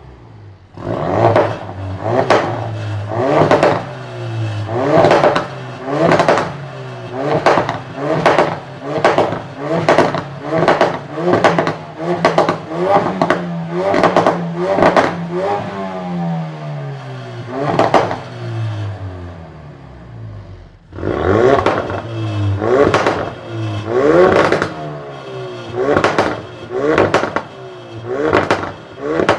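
2016 Ford Focus RS's 2.3-litre turbocharged four-cylinder revved in quick blips, about one a second, each rising in pitch and followed by sharp exhaust crackles and pops. Past the halfway point the revs ease off and the engine drops back toward idle for a few seconds, then the blips and pops start again.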